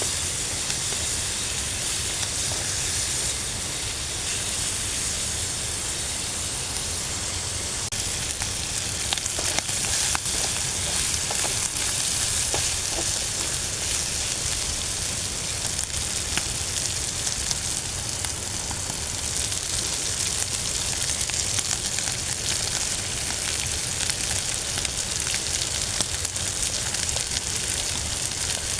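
Food sizzling as it fries: a steady hiss with many small scattered crackles.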